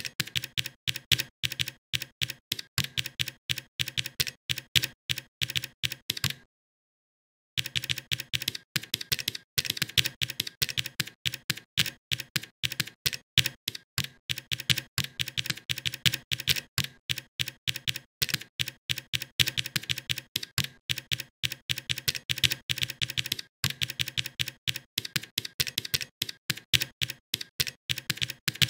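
Rapid typing on a computer keyboard: a continuous run of crisp keystroke clicks. It breaks off for about a second of dead silence a little over six seconds in.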